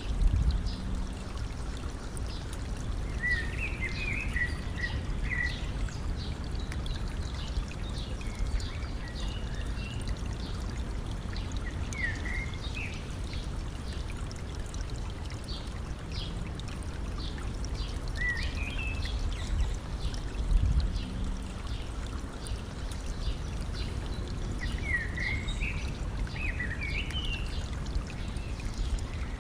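A stream trickling steadily, with a bird singing short chirping phrases several times over it. Two brief low rumbles, near the start and about two-thirds of the way in, are the loudest moments.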